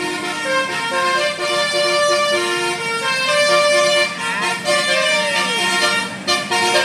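A tour bus's telolet basuri musical horn playing a melody as a run of short held notes, stepping up and down in pitch.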